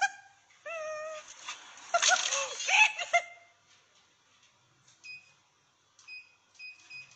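High-pitched animal cries in two short bouts, the second louder, then a quiet stretch with several short electronic beeps from a treadmill's control console.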